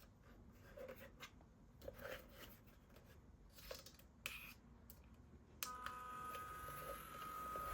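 Faint handling clicks and rustles. About two-thirds of the way through, a mini desktop fan's small electric motor switches on suddenly with a steady high whine and an airy hiss, growing slightly louder.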